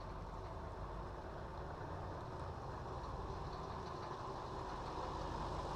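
Steady low rumble of a Fleetwood Flair Class A motorhome driving, with engine and road noise heard from inside the cab, growing slightly louder.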